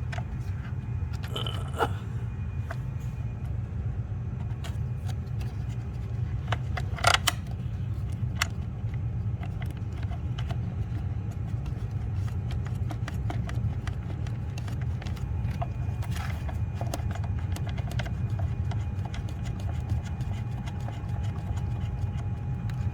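Scattered light metallic clicks and clinks of hand tools while the 10 mm bolt holding a PCV valve is put back in, with a sharper clatter about seven seconds in, over a steady low hum.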